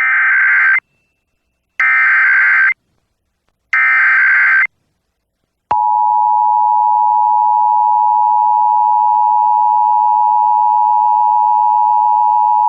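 Emergency Alert System SAME header: three harsh data bursts, each under a second long with about a second between them. About six seconds in, the steady two-tone EAS attention signal starts and holds, marking the start of a Required Monthly Test alert.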